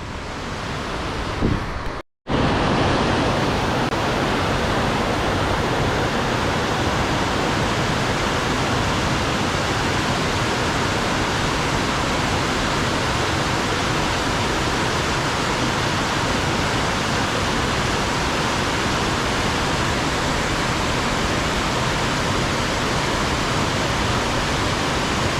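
Steady rush of fast, storm-swollen flowing water, loud and even, cutting out for a moment about two seconds in.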